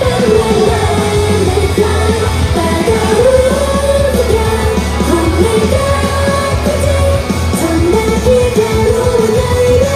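Idol-pop song performed live: a female voice sings the melody over a heavy bass line and beat, played loud.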